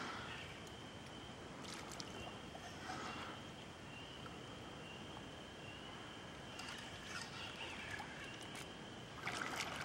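Faint, steady rush of river water, with a few light clicks about two seconds in and again near the end.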